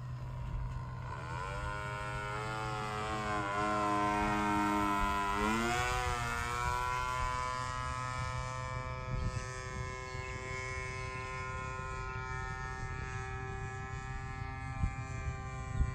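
PAW 149 model diesel engine of a radio-control model airplane buzzing in flight, a steady droning note. It grows loudest around four to five seconds in, and its pitch bends sharply about six seconds in before settling into a fainter, even drone.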